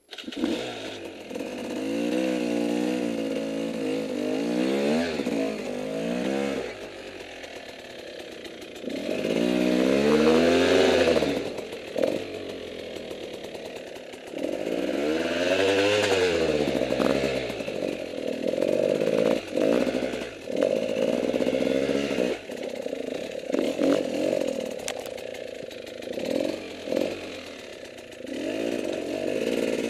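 Dirt bike engine climbing a rocky trail, revving up and down in repeated surges, loudest about ten seconds in. Scattered knocks and clatter come from the bike working over the rocks.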